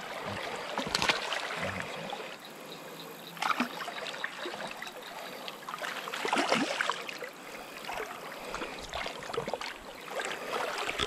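Shallow river water splashing and sloshing around a wading angler's legs and hands as a hooked shoal bass is brought in and lifted out by hand, with louder splashes about one, three and a half, and six and a half seconds in.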